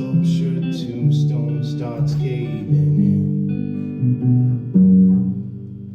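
Acoustic guitar strumming the closing chords of a song, ending on a last chord that rings out and fades.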